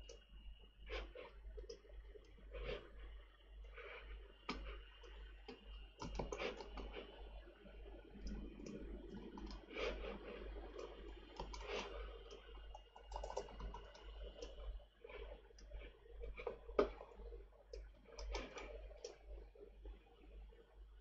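Irregular clicking and tapping of a computer keyboard and mouse as a post is typed, edited and scheduled, with a faint steady high-pitched whine in the background.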